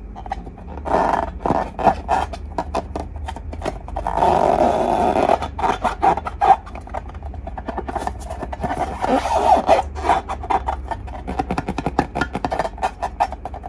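Slime being squished and kneaded: rapid irregular wet clicks and crackles, with a longer squelch about four seconds in.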